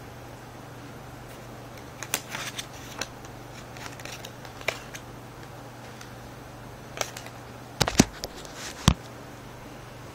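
A deck of playing cards being handled in a cut flourish: scattered clicks and snaps of cards and packets striking and sliding against each other, the sharpest pair near the end, over a steady low hum.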